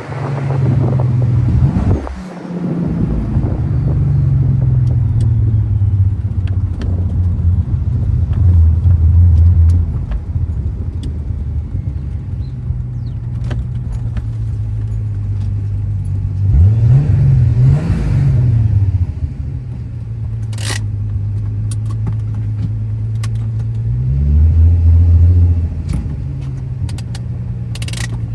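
Turbocharged VR6 engine and exhaust running with a steady low drone that swells briefly a few times as the revs rise and fall. A couple of sharp clicks come near the end.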